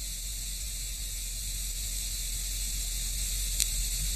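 Steady hiss and low hum of an old film soundtrack in a pause between speech excerpts, with a single click about three and a half seconds in.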